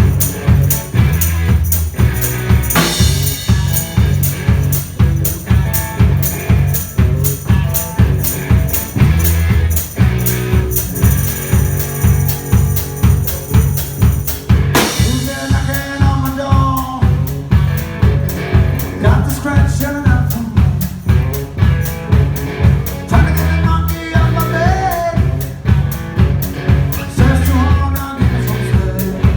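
Live band playing with a drum kit keeping a steady beat under bass. About halfway a crash marks a change, the busy high cymbal strokes drop away and a wavering melody line comes in.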